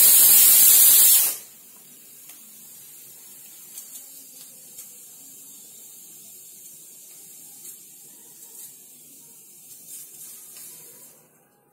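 Pressure cooker on a gas burner letting off its whistle: a loud jet of steam hissing out for about two seconds at the start, then cutting off sharply. This is the sign that the cooker has come up to pressure. A much quieter steady hiss follows and dies away shortly before the end.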